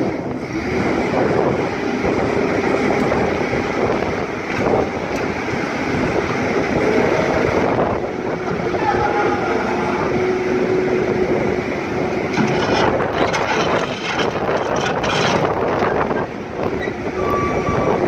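Terex TSR60 skid steer loader running: continuous engine noise with a held whine, clanks in the second half and a brief thin squeal near the end.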